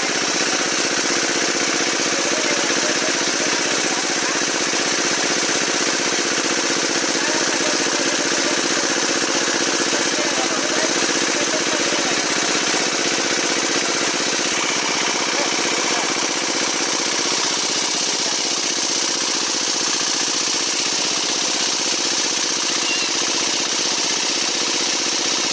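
A small engine running steadily without a break.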